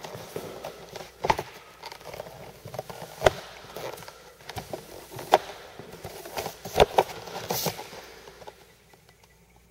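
T-bar floor-finish applicator on a pole being worked across a hardwood floor: irregular sharp clicks and knocks every second or two over a faint rustle, dying away near the end.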